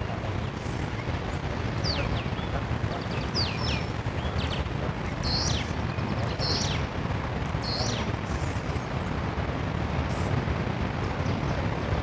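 Small birds calling: a series of short, falling chirps between about two and eight seconds in, over a steady low background rumble.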